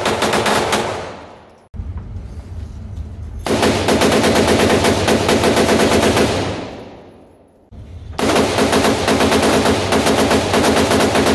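Rifle fire: long strings of rapid, evenly spaced shots. The strings fade away about a second in and again around seven seconds, with a quieter stretch in between.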